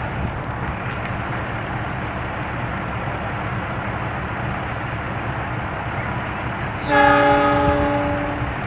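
Diesel locomotive horn, a CC206 (GE CM20EMP), sounding one loud blast about seven seconds in that lasts about a second and a half and fades off, over a steady low rumble.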